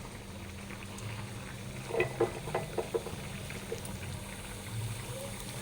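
Mustard-seed tempering in hot oil in a small pan, with a faint steady sizzle. About two seconds in, a quick run of about five sharp taps and pops comes as the garlic and cumin paste goes in.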